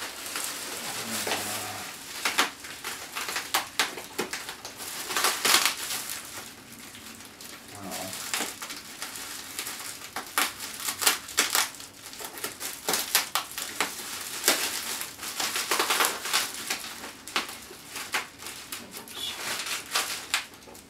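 Plastic bubble wrap crinkling and crackling as it is cut open with scissors and pulled around. There are irregular sharp crackles, with louder clusters every few seconds.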